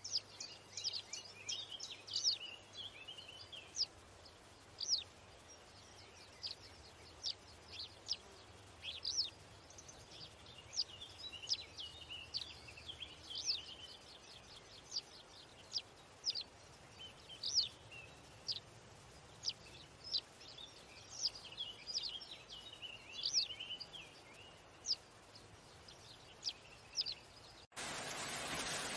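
Small birds chirping: thin, high, short notes, mostly falling in pitch, repeated irregularly over a faint background. About a second before the end the chirps cut off and a steady hiss takes over.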